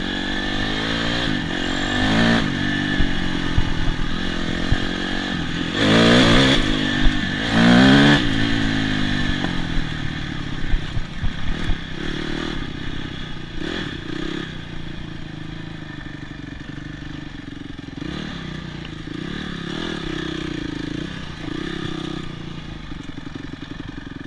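Honda CRF250X dirt bike's four-stroke single-cylinder engine revving hard in several bursts, its pitch rising and falling through the first eight seconds or so, then settling to a quieter, lower running note as the bike slows.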